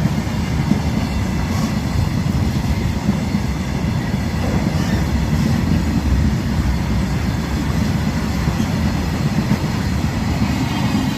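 Train running past or along at steady speed: a continuous low rumble of wheels on rails, with faint high steady tones above it.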